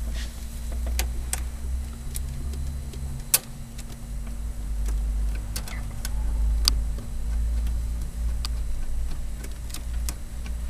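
Scattered small metallic clicks and taps as a stainless braided hose and its banjo fitting are handled and loosely screwed in under the hood, one sharper click about three and a half seconds in, over a steady low rumble.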